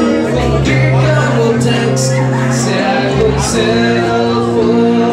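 Live band music: two electric guitars playing under a sustained low bass line, with a man singing at the microphone.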